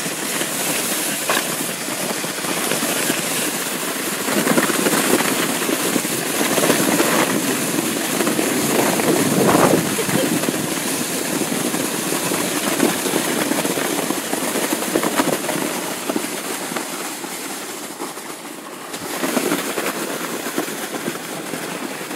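A sled sliding down a snowy hill: a continuous scraping hiss of the sled over the snow with wind rushing on the microphone, louder from a few seconds in and dipping briefly near the end.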